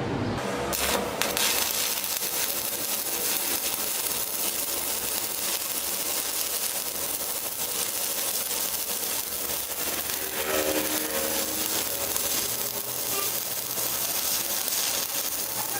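Stick welding arc crackling and hissing steadily as a rod burns, starting about half a second in.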